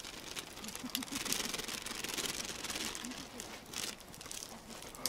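Dry grain being shaken out of a plastic bag into a metal camp pot: the bag rustles and the grains hiss as they pour and settle, loudest through the middle.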